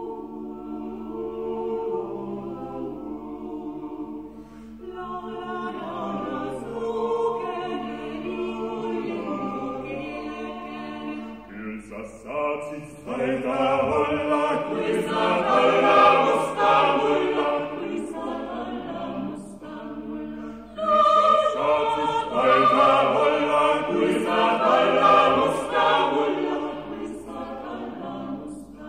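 A small vocal ensemble of seven singers singing an Estonian folksong in close harmony. It opens on steady held low notes, more voices join about five seconds in, and the singing swells louder about halfway through and again near the end.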